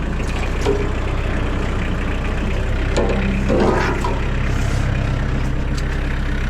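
Tractor engine running steadily at low speed. It picks up a little about three seconds in, with a few light knocks.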